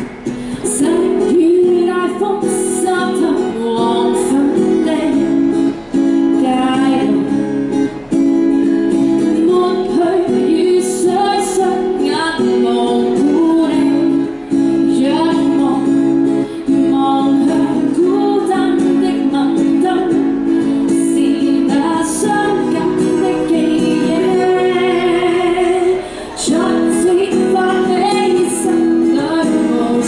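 A woman singing a Cantonese pop song live over a strummed acoustic guitar, through a small street amplifier.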